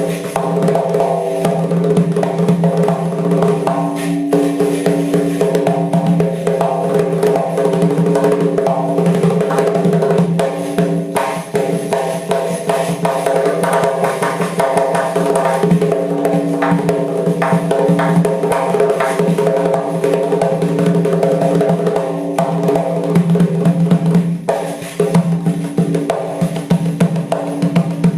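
Doira, the Uzbek frame drum, played in fast, dense strokes and rolls, with a steady ringing tone beneath the strikes.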